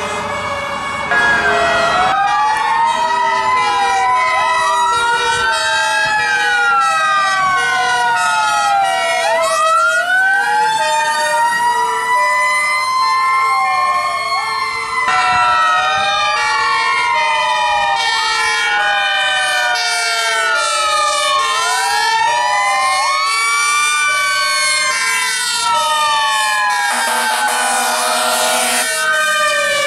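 Several fire-truck sirens wailing at once in overlapping rising and falling sweeps, over a two-tone hi-lo horn alternating between two notes about once a second.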